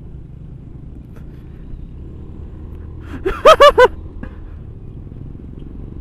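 Steady low rumble of a motor scooter riding over a rough road, engine and road noise together. About three and a half seconds in, a person's voice breaks in with three quick, loud cries.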